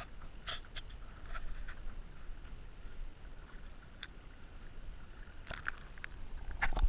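Underwater recording in a stream: a steady low rumble of moving water with scattered small clicks and taps, which come thicker and louder near the end.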